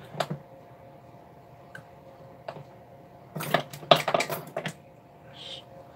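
Small metal clicks and clinks of a hand tool working against the brass works of a clock movement, a few single ticks and then a quick cluster of clinks in the middle. The tool is working to break loose the click holding a wound mainspring. A faint steady hum runs underneath.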